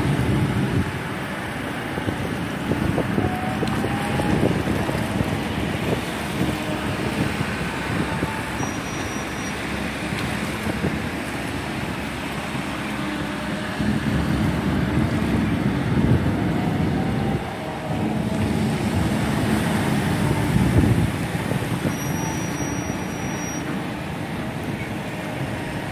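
Engine running steadily under a wash of wind and water noise, with no break or clear change in pitch.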